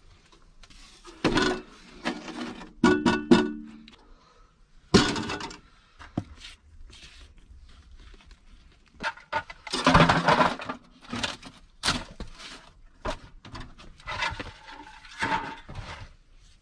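A clay-plastered stove being dismantled by hand: a rusty metal stove drum clanks and scrapes as it is pulled free, with a ringing metallic clatter about three seconds in. Clay chunks and rubble crumble and are knocked and scraped about in irregular bursts.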